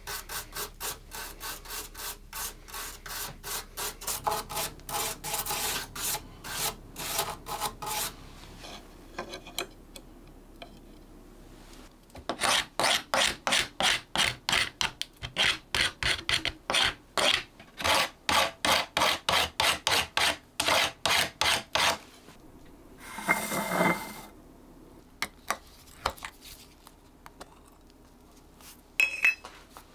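A metal hand file rasping back and forth over a metal key blank being fitted, in quick regular strokes about two to three a second, with a pause partway through. Near the end comes a short scrape and a brief click.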